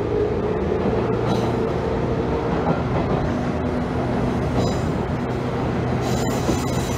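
Running sound inside a JR 201 series electric train's motor car: the thyristor-chopper-controlled traction motors hum steadily over the wheel and rail noise. A few short, faint, high-pitched wheel squeals come through.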